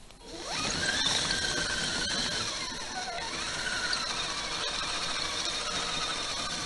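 Electric RC crawler on RC4WD Evo Predator tracks driving through snow: a steady motor, gear and track whine that climbs in pitch as it pulls away about half a second in, then wavers with the throttle.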